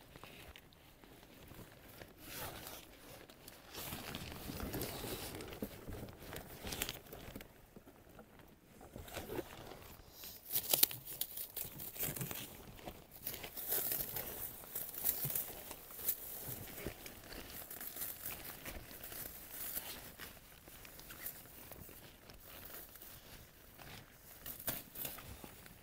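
Packaging around mail-order rose seedlings being crumpled, rustled and torn open by hand. It is an irregular crinkling with many sharp crackles, loudest a little before halfway.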